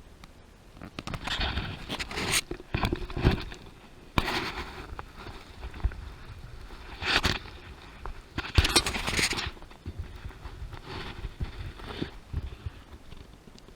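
A hiker's footsteps scraping and crunching on the trail, in irregular bursts every second or two.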